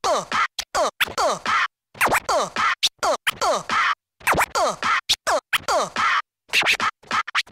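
Turntable scratching in a music track: a sample dragged back and forth in quick sliding strokes, chopped into short bursts with brief silences between them.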